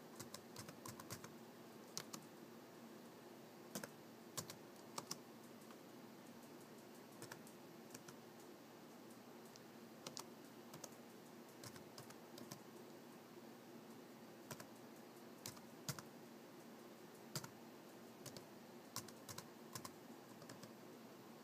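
Laptop keyboard being typed on slowly and one-handed: faint, scattered keystrokes at an uneven pace, with pauses between short runs of keys. A low steady hum sits underneath.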